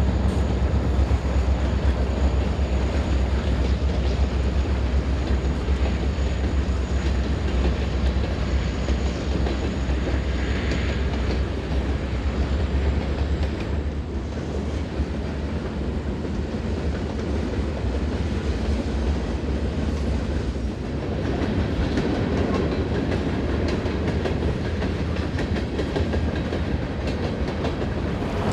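Freight train passing: the diesel locomotives' deep rumble, then the cars rolling by with steady clatter of wheels on rail. The deep rumble drops away about two-thirds of the way through, leaving the rolling of the cars.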